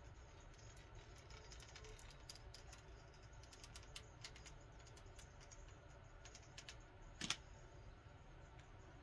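Faint, irregular clicking and ticking from the coiled spring of a power twister bar as it is bent and straightened, with one sharper click about seven seconds in, over a low steady room hum.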